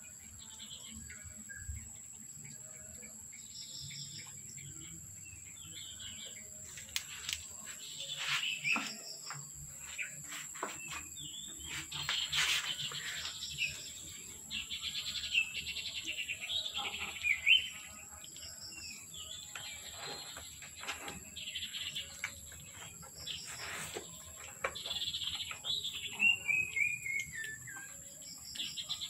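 Small birds chirping and twittering repeatedly, with a quick falling run of notes near the end. Scattered soft clicks are mixed in.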